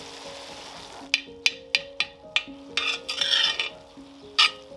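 A cooking utensil stirring minced beef in a wok, knocking and scraping against the pan: about six sharp taps and a short scrape from about a second in. Soft background music plays underneath.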